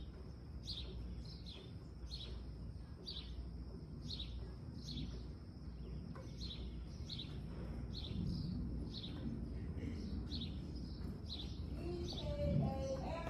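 A bird chirping over and over, one short high chirp about every second, over steady low background noise. A brief pitched, voice-like call comes in near the end.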